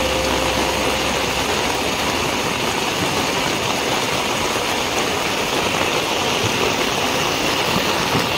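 Heavy rain falling steadily on an open concrete wharf, a constant even hiss. A low hum and a thin tone fade out in the first second and a half.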